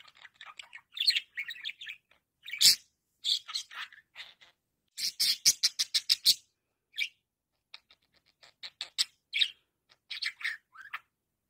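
Budgerigar chirping and chattering in short, high-pitched bursts, with a fast run of sharp clicks about five seconds in.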